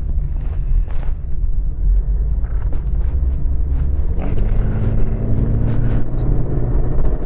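Holden VE Commodore driving, heard from inside the cabin: a steady low engine and road rumble, with the engine note rising about four seconds in as it pulls. The car is in limp mode and barely accelerates even at full throttle.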